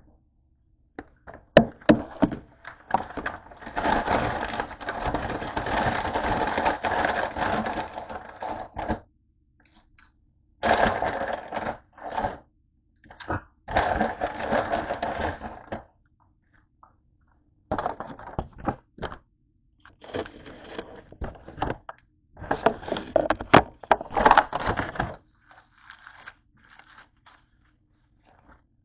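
Paper take-out bag and foil sandwich wrappers rustling and crinkling as they are handled, in several long bouts with short pauses and a few sharp knocks.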